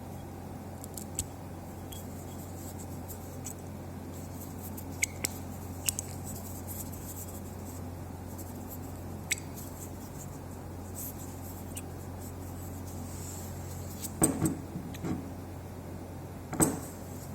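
Sporadic light clicks and clinks of a small metal part being handled, over a steady low hum. A cluster of louder knocks comes about 14 seconds in, and one more near the end.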